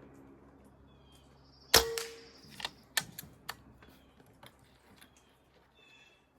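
A single shot from a suppressed air rifle: one sharp crack with a brief metallic ring, followed by several lighter clicks and knocks.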